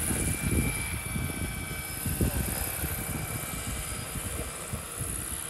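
Radio-controlled scale Bell 412 helicopter (Roban Super Scale 800 size) in flight, its rotors and drive giving a steady high whine over an uneven low rumble, growing slightly fainter.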